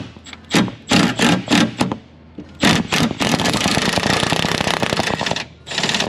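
Hand ratchet driving a Torx bit on an extension while unbolting the door glass from the window regulator. A few short ratcheting strokes come first, then fast continuous clicking from about three seconds in.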